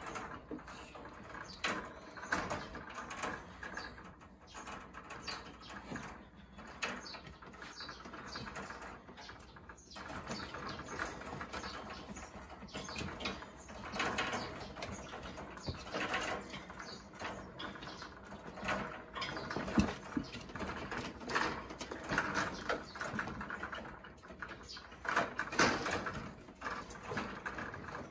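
Kittens playing in a wire cage: irregular rattling of the cage and scraping and knocking on its wooden shelf as they scramble and bat at a string toy, with a few louder knocks.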